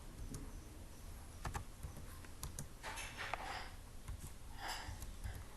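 Scattered clicks of a computer keyboard being typed on, with two short hissing noises about three and four and a half seconds in.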